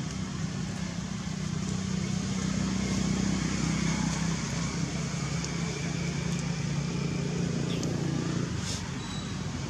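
A motor engine running steadily, a low hum that swells a couple of seconds in and falls away near the end.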